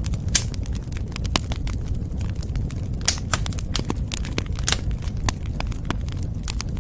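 Wood fire crackling in a fireplace: irregular sharp pops and snaps, a few of them louder, over a steady low rumble of the burning.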